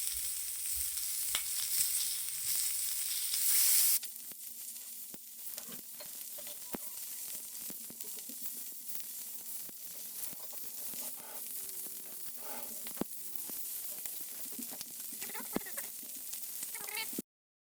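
Chicken skin frying in its own fat on a thick steel griddle: a steady sizzle with scattered pops and crackles. It drops suddenly to a quieter sizzle about four seconds in.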